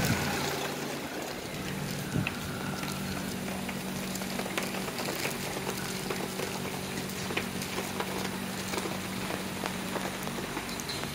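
Rain falling on a flooded street and its puddles: a steady hiss with many small drop ticks. Under it, a low steady hum sets in about two seconds in and fades near the end.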